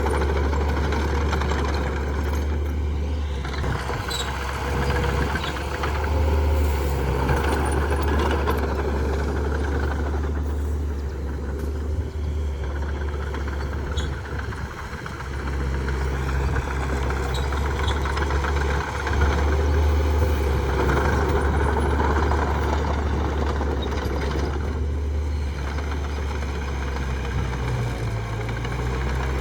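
Heavy diesel earthmoving machinery running steadily, its engine level rising and dipping slightly as it works.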